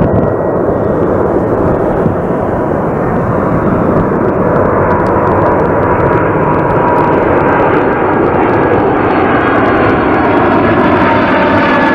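Boeing 747-400 freighter's four jet engines on final approach for landing: a loud, steady roar that grows brighter as the airliner comes in low overhead, with a thin steady whine running through it.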